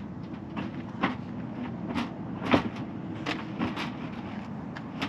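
A series of knocks and clunks as items are set down and handled at an RV's open storage bay, the loudest about two and a half seconds in. A steady low hum sits underneath.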